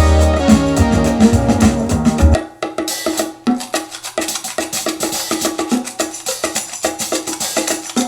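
Electronic music with a steady beat, played through KEF LSX active speakers. About two and a half seconds in, the bass and kick drop out, leaving a quick, clicky wood-block-like percussion pattern.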